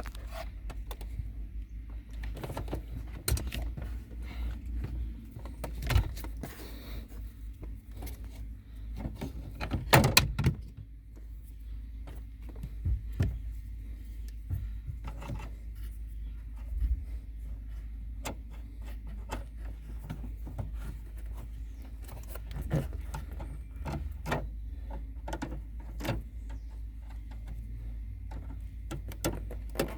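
Scattered metallic clicks, taps and rattles of pliers working a lever and rod clips on the door-lock mechanism inside a car door, with a louder clatter about ten seconds in, over a steady low hum.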